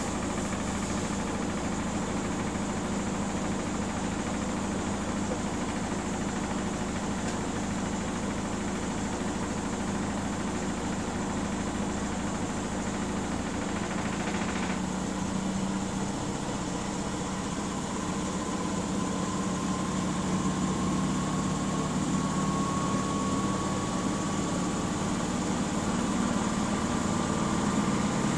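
Miele W 5963 washing machine in its spin cycle: a steady running hum and rumble of the drum and motor. About halfway through the sound shifts, and a faint whine then rises slowly in pitch as it grows a little louder.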